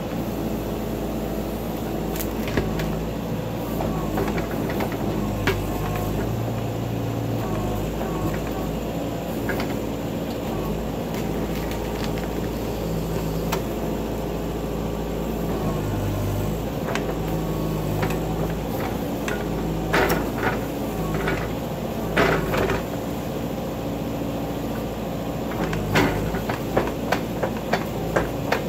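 Backhoe's diesel engine running steadily, its pitch shifting now and then as the hydraulics take load, with scattered knocks and clunks from the digging. The knocks come thicker about two-thirds of the way in and near the end.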